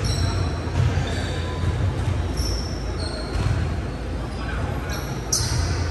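Basketball game in a large gym: sneakers squeaking on the hardwood court a few times, the ball bouncing, and players' voices over a steady low rumble.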